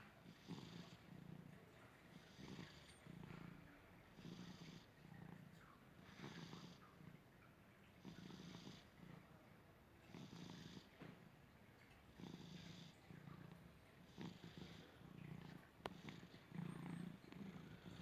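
Domestic cat snoring faintly in a slow, even rhythm of about one breath every two seconds. Each breath has a low rumble and a short, thin, high wheeze.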